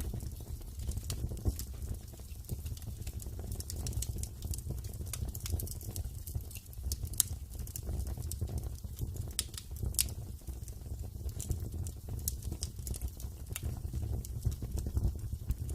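Wood fire crackling in a fireplace: irregular sharp pops and snaps over a low, steady rumble of the flames.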